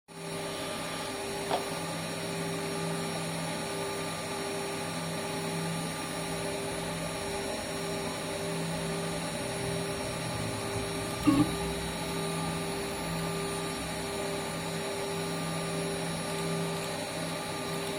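Spindle motor of a small CNC milling machine running steadily with an even hum, milling the RAM chip off an iPhone logic board. There is a short click about a second and a half in and a brief louder scrape near the middle.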